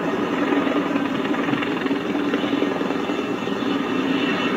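Firefighting helicopter's rotor and engine, a steady drone with a fine rapid chop.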